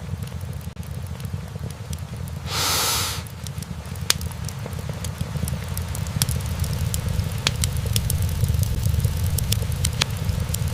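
Wood fire burning in a fireplace: a steady low rumble from the flames with sharp crackles and pops from the logs, which grow more frequent after about four seconds. A short hiss comes about three seconds in.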